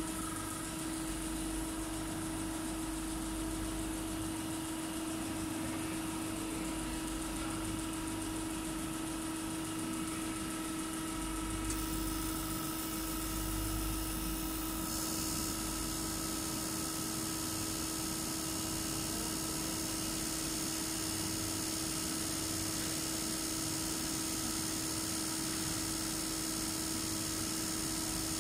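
Common-rail injector test bench running: its drive motor and high-pressure pump turning at 300 rpm with a steady hum and a constant mid-pitched tone, building rail pressure up to a 35 MPa setpoint. A high hiss grows louder about twelve seconds in and again about fifteen seconds in.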